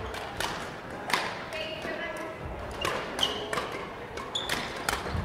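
Badminton rally: rackets striking the shuttlecock with sharp hits about once a second, with brief sneaker squeaks on the hall's court floor between them.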